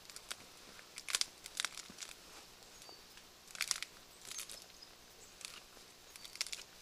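Dry twigs and fallen branches crackling and snapping in scattered bursts as a person pulls at them and pushes through brush.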